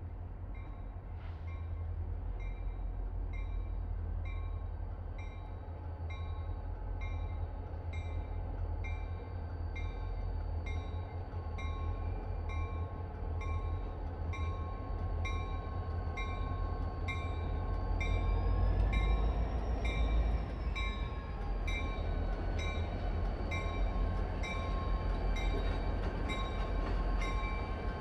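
Diesel freight locomotives rolling slowly through a rail yard with a deep engine rumble and a locomotive bell ringing steadily, about twice a second. Around two-thirds of the way in, a whine rises and falls in pitch while the rumble is at its loudest.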